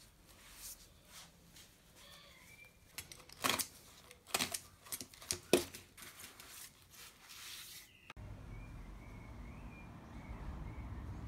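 Handling sounds of a sickle blade being wiped clean with a cloth: scattered sharp clicks and scrapes, loudest in the middle. After about eight seconds the sound changes abruptly to a low steady rumble with birds chirping faintly.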